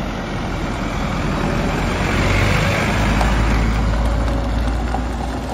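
Otokar minibus's diesel engine running close by with a steady low hum, growing louder toward the middle.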